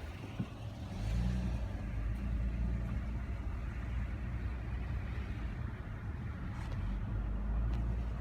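Low, steady rumble of a motor vehicle engine that swells about a second in and holds.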